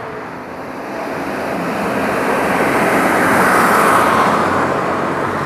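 A heavy hook-lift truck driving past close by, its engine and tyre noise swelling to a peak about four seconds in and easing slightly after.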